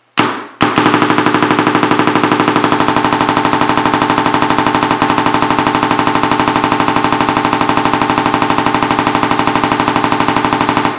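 Evil Minion electronic paintball marker dry-firing on compressed air, with no paint loaded and its barrel stuffed with a cloth: two single shots, then a rapid, steady stream of shots for about ten seconds that stops suddenly.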